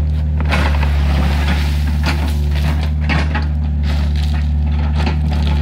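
Heavy diesel engine running steadily close by, with several short crunches of stone and gravel breaking through it.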